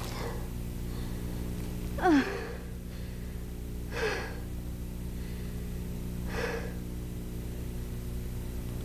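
A woman sobbing and gasping in grief: a ragged, breathy sob every two seconds or so, the loudest about two seconds in as a cry that falls in pitch. A steady low hum runs underneath.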